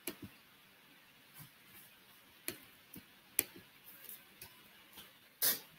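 Faint, irregular small clicks and taps, about ten of them spread unevenly, one sharper click about three and a half seconds in, and a short louder rustle near the end.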